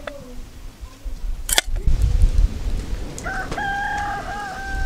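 A rooster crowing once, one long stepped call of about two seconds starting about three seconds in. It is preceded by a sharp click and low rumbling noise.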